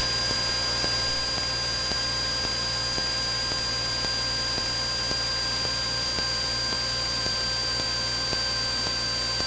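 Steady in-flight cockpit noise of a Cessna 172N cruising: a constant low engine and propeller drone under hiss, with a faint, unchanging high whine.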